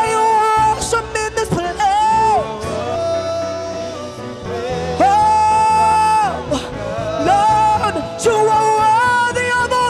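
Live gospel worship music: a woman's lead voice holds long high notes with vibrato and slides between them over a steady band accompaniment.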